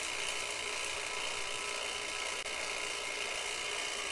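Refrigerant vacuum pump running steadily, evacuating the truck's air-conditioning system, a constant mechanical drone with a steady high whine.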